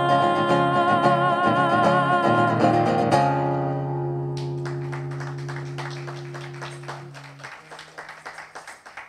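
A woman sings a last held note with vibrato over an acoustic guitar. About three seconds in, the guitar strikes a final chord that rings out and fades over several seconds. Faint scattered applause starts as the chord dies away.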